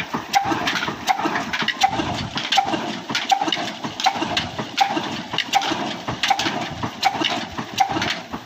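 Old Ruston stationary single-cylinder engine with heavy flywheels running slowly, belted to an irrigation water pump. Its exhaust beats in an even, slow rhythm, a strong beat about every three-quarters of a second with lighter knocks in between.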